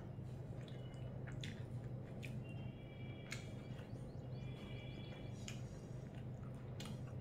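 Eating by hand: soft squishes and clicks of fingers mixing rice and curry on a plate, with chewing, over a steady low hum. A few short high chirps sound in the middle.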